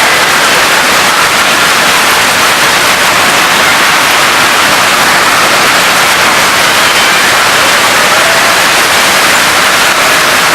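Hail and heavy rain coming down together, a loud, dense, steady hiss with no letup.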